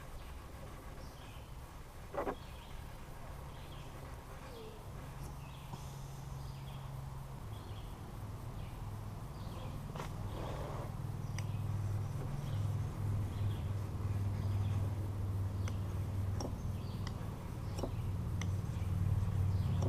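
Faint, scattered bird chirps over a steady low drone that grows louder through the second half.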